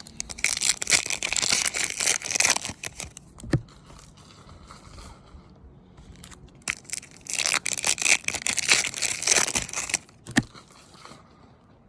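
Crinkly plastic packaging around trading cards being handled, in two stretches of about three seconds each, each followed by a short knock.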